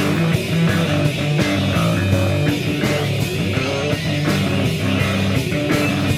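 Rock band playing an instrumental passage: a driving bass guitar line and electric guitar over steady drums, with no vocals.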